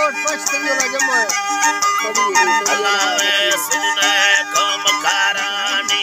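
Long wooden end-blown flute playing a gliding folk melody over held drone tones, with a long-necked lute strummed in a steady, even rhythm.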